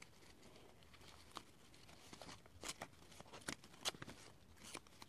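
Faint rustling and light crackling of paperback book pages being handled and folded by hand, with a few sharper paper ticks in the second half.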